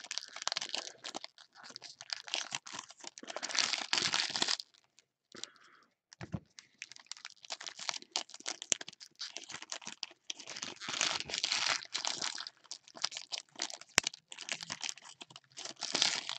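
Foil trading-card pack wrappers crinkling and crackling as gloved hands handle them, in irregular bursts with a short pause about five seconds in.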